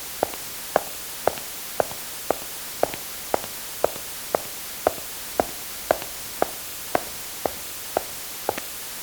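Footsteps at a steady walking pace, about two sharp steps a second, stopping near the end.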